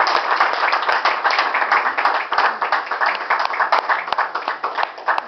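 A small audience applauding, many hands clapping together, the clapping thinning out near the end.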